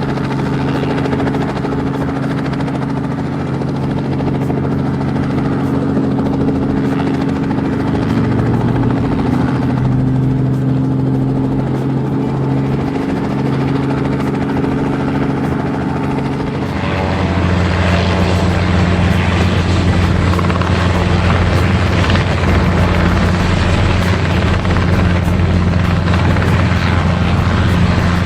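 Helicopter rotor and turbine sound, played for a toy rescue helicopter taking off, with a steady drone. About seventeen seconds in it shifts to a lower, louder tone.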